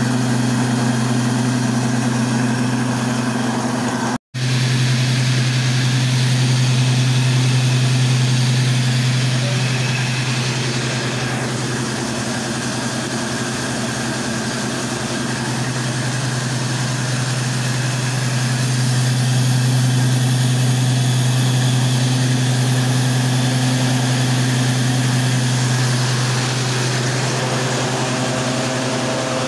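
A 24-inch flour mill (atta chakki) driven by a 10 hp motor, running steadily while grinding grain, with a strong low hum. The sound cuts out for a split second about four seconds in.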